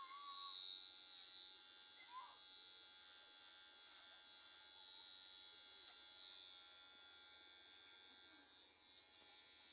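Electric hair clipper buzzing steadily as it cuts hair, fading near the end.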